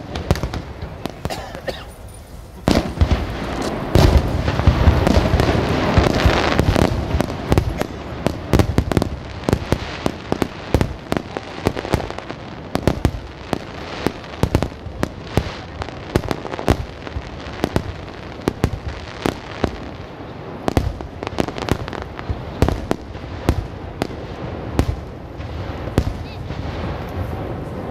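Aerial firework shells bursting in rapid succession: a dense, loud barrage of overlapping bangs from about three seconds in to about eight seconds, then a quick run of separate sharp bangs.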